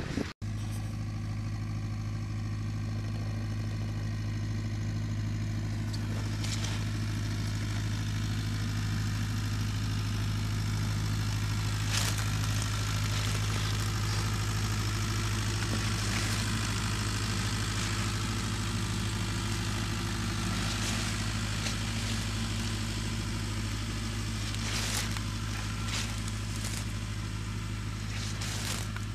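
Tractor engine running at a steady speed while towing a field sprayer: an even, unchanging low drone. A few sharp clicks stand out above it.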